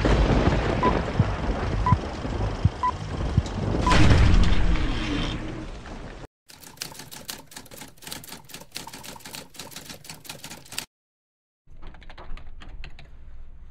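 Film-leader countdown: a short high beep about once a second over a noisy crackle, swelling louder around four seconds in. About halfway through, a dense run of rapid clicks takes over and then cuts off briefly near the end.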